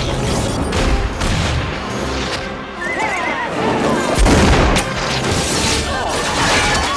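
Film action soundtrack: orchestral score over horses whinnying as a horse-drawn carriage charges, with a heavy boom about four seconds in.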